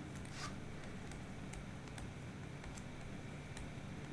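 Faint, scattered light ticks of a stylus writing on a tablet screen, over a low steady hum.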